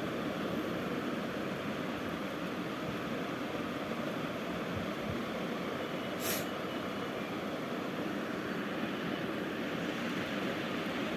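Steady rumbling noise with no rhythm or breaks, with one brief hiss about six seconds in.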